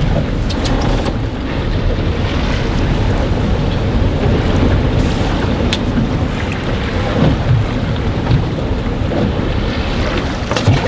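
Strong wind of over 20 knots buffeting the microphone on a small fishing boat, with waves sloshing and a few brief clicks, one near the end.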